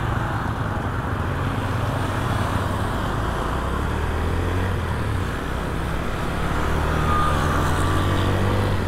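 Motorcycle engine running steadily with a low hum, growing a little louder about five seconds in.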